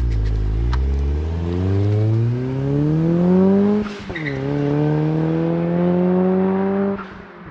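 Turbocharged 2001 Mazda Miata (NB) four-cylinder accelerating hard. The engine note climbs through a gear, drops sharply on a shift about four seconds in with a short turbo flutter, then climbs again through the next gear until the driver lifts off near the end.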